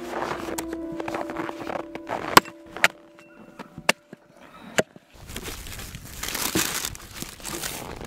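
Axe chopping meat on a wooden stump: four sharp strikes about a second apart in the middle, the first two loudest. Faint background music fades out in the first two seconds, and a rustling noise follows the strikes.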